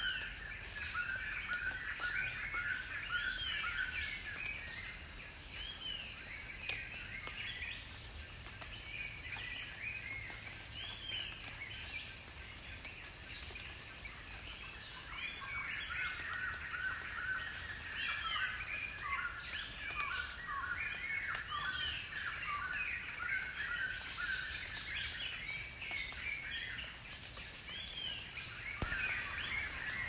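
Forest birds chirping and calling in many short, quick notes, over a steady high-pitched insect whine. The calls are dense at first, thin out for a while, then pick up again.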